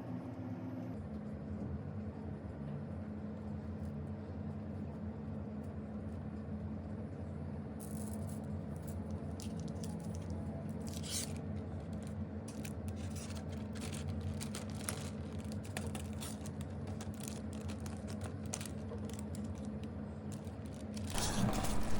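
Hands handling the small parts and film wings of a rubber-band ornithopter toy during assembly: scattered short scrapes, clicks and crinkles that start about eight seconds in, over a steady low hum.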